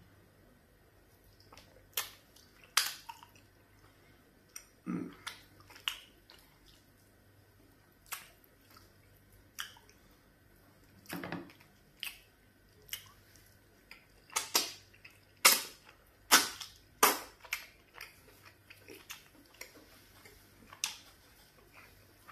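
Close-miked eating sounds: sharp, wet lip smacks and mouth clicks at irregular intervals as soft fufu and garden egg soup are eaten by hand, coming thicker and louder after about fourteen seconds.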